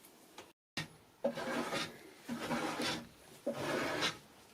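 Hand plane shaving wood on a drawer, three separate strokes about a second apart, each a brief rasping scrape.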